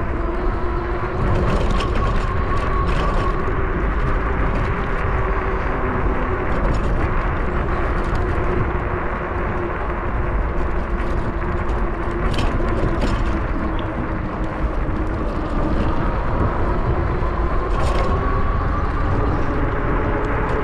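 Wind rushing over the microphone and tyre noise from a bicycle riding on pavement, with a steady whine that slowly drifts in pitch. A few short rattles come about twelve seconds in and again near the end.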